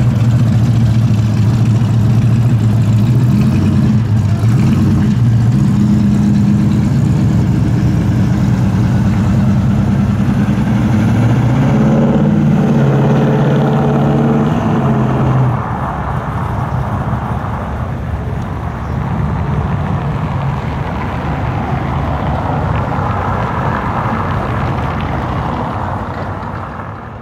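1969 Dodge Charger's V8 engine and exhaust running at low revs with a deep, steady note. Just past the middle the note rises and falls as the car pulls away, then drops off suddenly, leaving a steady rushing noise.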